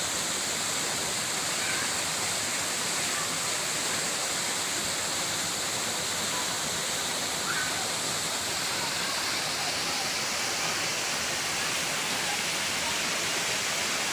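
Waterfall, water pouring down in a steady, even rush of noise.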